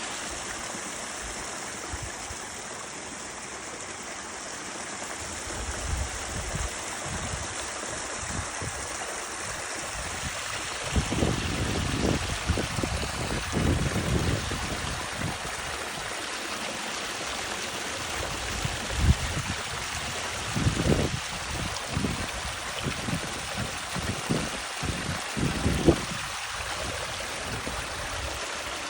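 Stream flowing: a steady rush of running water. Several short low thumps come and go in the second half.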